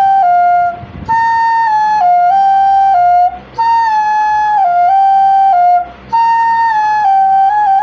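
Background music: a flute playing a short phrase of a few held notes that step down and back up, repeated about every two and a half seconds with brief breaks between phrases.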